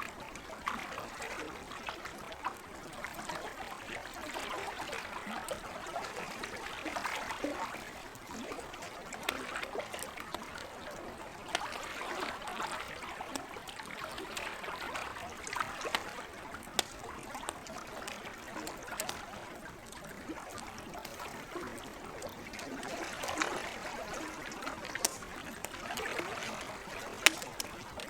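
Lake water lapping and trickling in slow swells, with the scattered sharp pops and crackles of a wood campfire; one pop near the end is the loudest.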